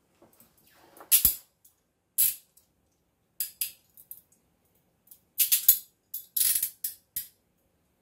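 CTS-Thompson 1010C chain-link handcuffs rattling and clicking in several short bursts, the chain jingling and the bows ratcheting closed onto the wrists.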